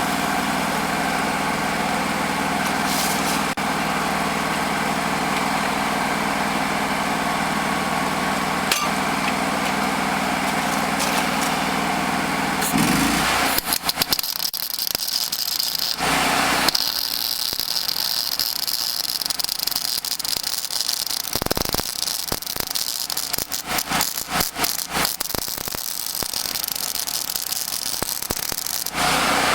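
An engine-driven welding machine runs steadily. About halfway through, its engine picks up and a welding arc crackles in runs with short breaks until just before the end.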